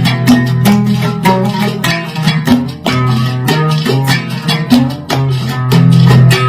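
Plucked string instrument playing a fast instrumental passage of a Yemeni traditional melody, with many quick plucked notes over held low notes.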